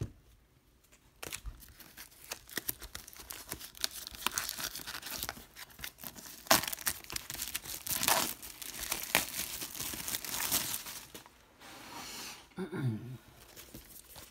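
Plastic shrink wrap being torn and crinkled off a DVD box set: a dense run of crackling and ripping from about a second in, dying away near the end.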